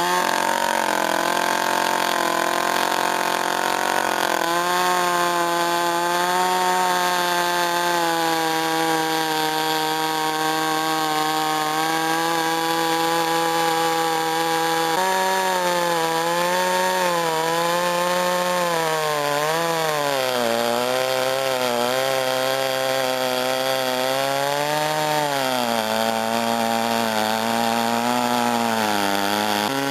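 Chainsaw engine running at high revs. It is steady at first, then from about halfway its pitch dips and recovers again and again as it bogs down cutting into wood.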